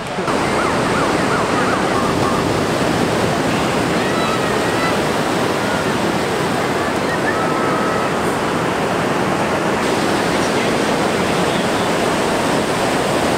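Steady, loud rush of breaking ocean surf.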